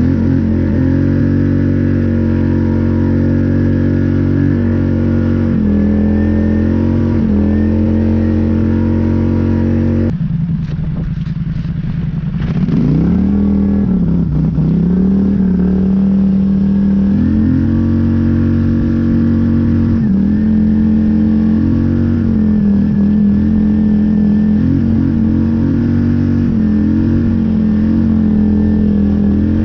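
Polaris Scrambler 850 ATV's twin-cylinder engine running under load while plowing through deep snow, its revs held mostly steady. About ten seconds in the engine eases off, then revs back up a couple of seconds later and holds steady again.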